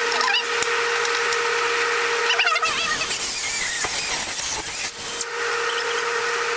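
Small die grinder running with a steady whine while cutting into the plastic of a car tail-light housing, with a few brief squeals. For about two and a half seconds in the middle the whine gives way to a rougher sound.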